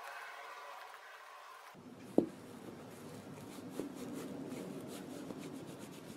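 Cloth rubbing leather balm into a Doc Martens leather boot, with soft repeated rubbing strokes around the laces and tongue. A single sharp knock comes about two seconds in.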